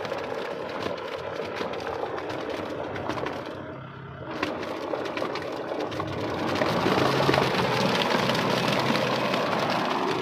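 Kubota MU5501 tractor's diesel engine working as its rotavator churns through wet, sticky paddy mud, with a dense crackle and splatter of mud. The rotavator's rear cover is open, so the churned mud is thrown out behind rather than balling up inside. It dips briefly about four seconds in, then grows louder about six seconds in.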